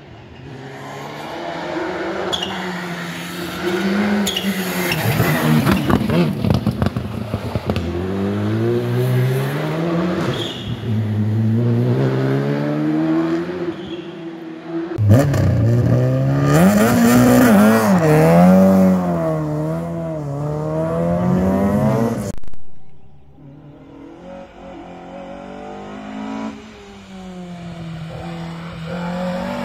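Rally cars at full throttle on a tarmac special stage, the engine note climbing and then dropping with each gear change as they pass. There are several separate passes, one cutting off suddenly about two-thirds of the way in. After it a quieter car can be heard approaching and getting louder.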